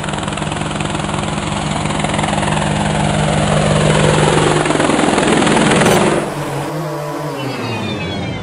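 Quadcopter drone propellers whirring: a steady buzzing hum with a sweep falling in pitch that grows louder over several seconds. About six seconds in it drops in level and the hum wobbles up and down in pitch.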